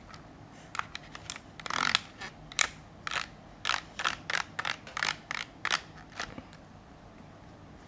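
ASMR tapping and clicking on an acrylic paint set and its packaging: a run of short, sharp, irregular clicks, about one or two a second, that stops about a second before the end.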